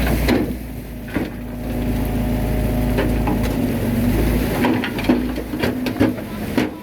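Bulldozer's diesel engine running under load with clanking knocks from the tracks and blade working soil; the deep rumble falls away about two-thirds of the way through while the clatter goes on.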